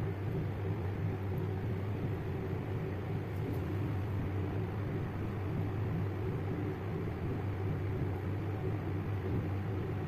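Steady low hum.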